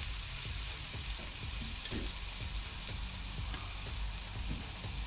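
Giant tiger prawns sizzling in butter, olive oil and garlic in a frying pan: a steady frying hiss.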